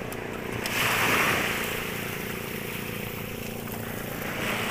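Sea waves washing in twice, swelling and fading, with wind on the microphone and a steady low hum underneath.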